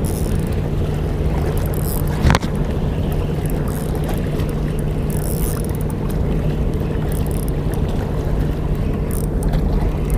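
An engine running steadily with a low, even drone, and one sharp knock about two seconds in.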